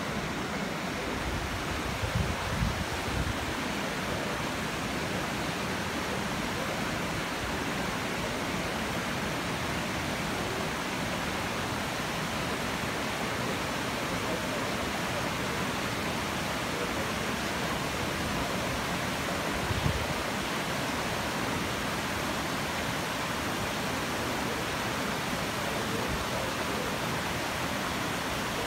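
River water rushing over granite ledges in small cascades, a steady, even rush. A few brief low thumps stand out near the start and once about two-thirds of the way through.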